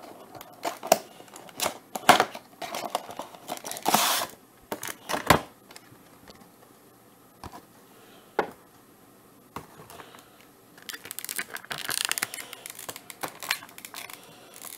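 Cardboard box and clear plastic packaging handled on a table: a run of knocks and scrapes as the plastic case is slid out of the box, a few single clicks, then plastic crinkling for a couple of seconds near the end.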